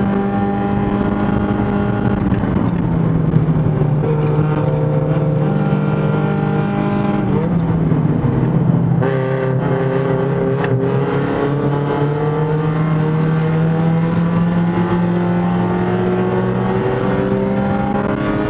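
Spec Miata's four-cylinder engine heard from inside the cockpit at race pace. The revs hold high, drop about halfway through as the car slows for a corner, then climb steadily under acceleration, with a drop near the end that sounds like an upshift.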